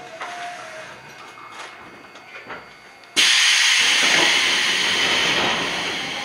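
Iyo Railway 3000 series train's compressed-air system venting: a sudden loud hiss about three seconds in that slowly dies away, after a whine fades out in the first second as the train comes to a stand.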